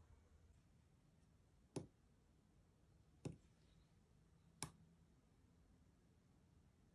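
Three short, sharp clicks about a second and a half apart, from small tactile push-button switches on a breadboard being pressed to charge a capacitor and then discharge it through an LED.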